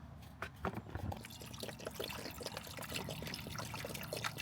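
Water poured from a bottle into a portable ice maker's reservoir, gurgling in quick, irregular pulses.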